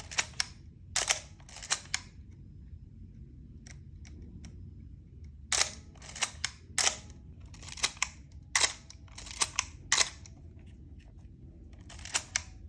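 Canon A-series 35mm SLR shutter being fired again and again: sharp double clicks as the mirror and shutter trip, with the dry cough/squeak the A-series is infamous for. That cough is usually put down to dried-out lubricant in the mirror mechanism. The releases come at uneven intervals, with a pause of about three seconds after the first few.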